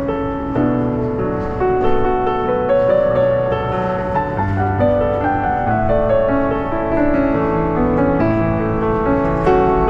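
Background music: a slow piece of held, overlapping notes with piano.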